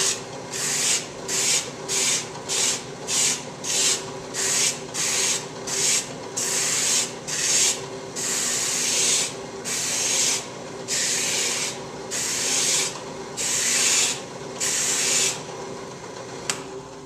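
Flexible sanding pad spinning in a drill press, with a wooden bowl's outside edge pressed against it in a series of sanding passes to bevel the edge. The passes are short, about two a second, at first, then longer, and they stop near the end. Under them the drill press motor hums steadily.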